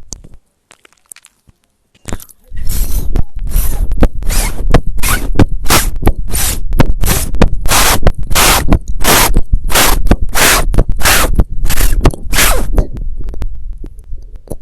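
A very loud, distorted noise blasted in rapid repeated bursts, about one and a half a second, starting abruptly after two seconds of silence and tailing off near the end.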